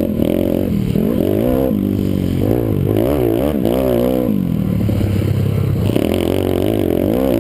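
Minicross pit bike's engine revving up and down under hard riding, its pitch climbing and dropping about once a second with throttle and gear changes, held steady for about a second and a half in the middle.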